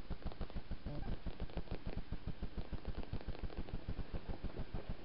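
Persian cat purring right at the microphone: a steady, rapid, even pulsing.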